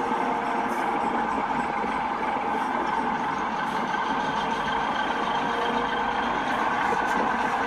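Model diesel locomotive's onboard sound running a steady diesel engine sound with a constant whine, as the model train rolls along the track.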